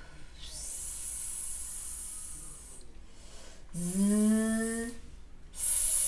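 A woman holding out a long hissed "sss", just air through the teeth, then a buzzing voiced "zzz" on a steady pitch, then the hissed "sss" again. This is the voiceless /s/ set against the voiced /z/, where the voice is what makes the vibration.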